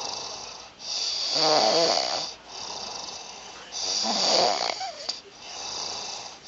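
A man snoring in his sleep: two loud snores about three seconds apart, each lasting a second or more with a wavering pitch, and quieter breathing between them.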